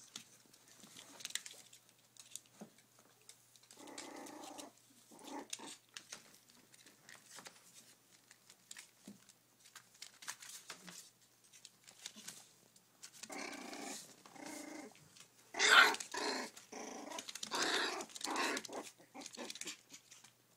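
Month-old poodle puppies growling as they play-fight, in short bouts about a fifth of the way in and again over the last third, loudest about three-quarters of the way through. Faint rustles of the plastic sheet under them come in between.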